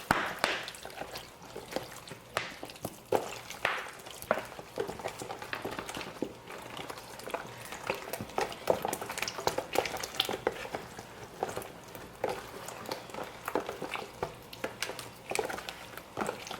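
Hands rubbing and turning raw turkey necks in lemon juice: irregular wet squishing, sloshing and small clicks, steady without pause.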